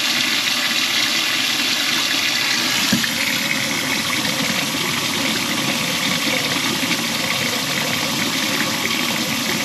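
Tap water running steadily into a kitchen sink and draining away, testing a drain line just snaked clear of a grease clog. One short knock about three seconds in.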